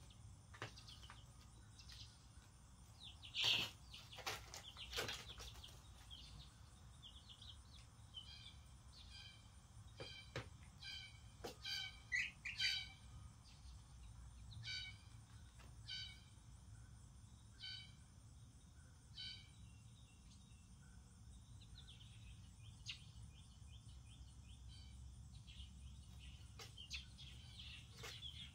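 Baby chicks a couple of weeks old peeping, a run of short, evenly spaced peeps through the middle, with a few sharp taps mixed in. A faint steady low hum lies underneath.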